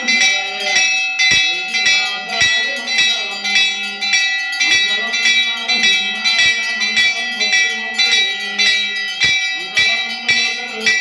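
Temple bells ringing continuously for an aarti, with a steady beat of clanging strikes about two to three times a second.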